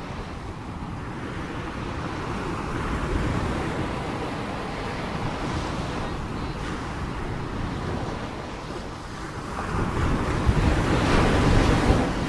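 Sea waves washing and breaking. The surf swells once early on and builds to its loudest surge near the end, with wind buffeting the microphone.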